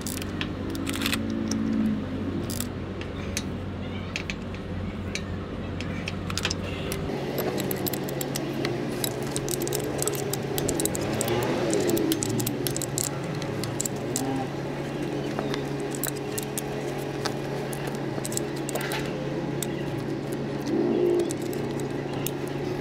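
Metal wrench clinking and clicking on the starter motor's mounting bolts, in short irregular taps, over a steady low hum.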